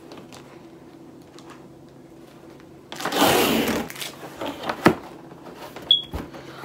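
A cardboard box being handled and opened by hand: after a few quiet seconds, a second-long scraping rustle of cardboard, then a few sharp knocks as the flaps are pulled open.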